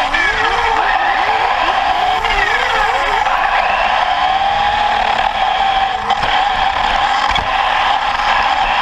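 Electric motor and gear drivetrain of a 1/10 Team Associated B44 four-wheel-drive buggy whining under throttle, recorded from a camera mounted on the car. The pitch rises and falls in quick throttle bursts through the first few seconds over a steady whine and the rush of tyres on dirt, with a couple of knocks later as the buggy hits bumps.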